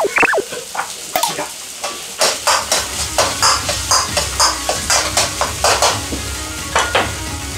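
Fried rice sizzling in a wok while a metal ladle scrapes and knocks against the pan, about two or three strokes a second from about two seconds in.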